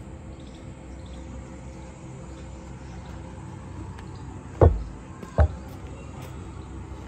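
Two sharp knocks a little under a second apart over a steady low background noise.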